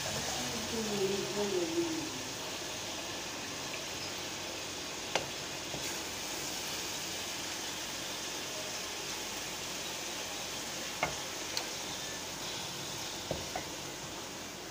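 Chicken curry sizzling steadily in the pan on the stove, with a few sharp clicks of a serving spoon against the dishes as pieces are served out.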